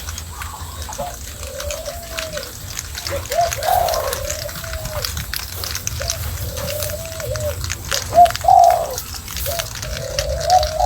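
A dove cooing, a low rounded call repeated about every two seconds, over a patter of small crisp clicks typical of a hedgehog crunching dry food.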